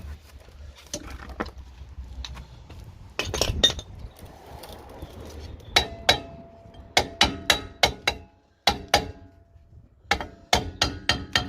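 Metal tools striking metal car parts: sharp clinks, each with a brief ring, coming in quick runs of several strikes a second from about halfway through, after quieter scattered knocks.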